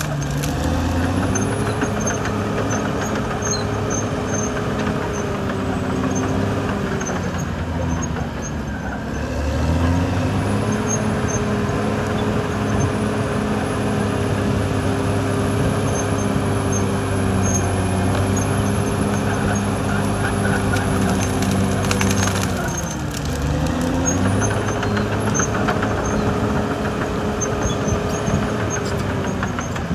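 Caterpillar D6R XL bulldozer's diesel engine running steadily. Its note drops and recovers twice, about a third of the way in and again about three-quarters through.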